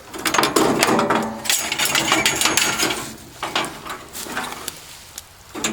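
Metal clattering and rattling for about three seconds, then scattered clicks and knocks: hand work on a band sawmill as its blade is being taken off.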